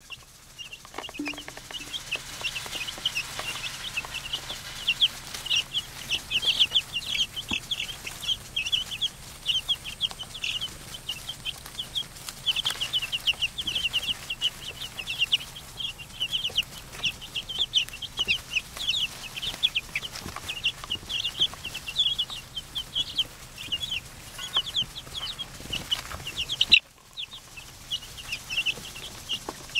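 A flock of two-week-old Light Sussex chicks peeping without pause, many short high calls overlapping. About three seconds before the end there is a sharp click and a brief break in the sound.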